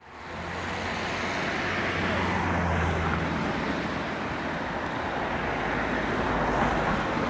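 Steady, loud rushing noise with a low hum under it, stronger in the first half, fading in at the start.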